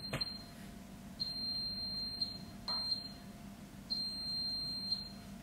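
Electronic alarm beeping: a single high, steady tone in repeated beeps of up to about a second each, with short irregular gaps between them. A click sounds right at the start.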